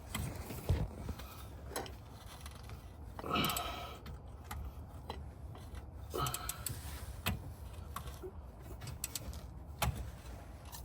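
Hand tools working on the differential's mounting bolts under a car: scattered metal clicks and knocks, with two longer creaking scrapes about three and a half and six seconds in.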